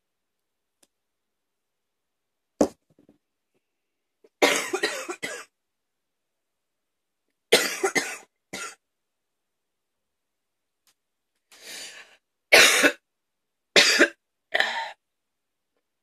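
A woman coughing hard in separate fits with silent pauses between them: a single sharp cough, then runs of several coughs in quick succession, the last group the longest.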